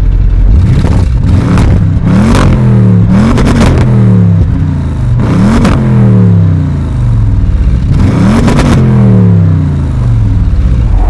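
Audi RS6 engine revved hard about five times in dynamic mode, its exhaust louder with the centre resonator swapped for straight pipes. Each run climbs quickly to the rev limiter, chatters there in short sharp cracks, then falls away.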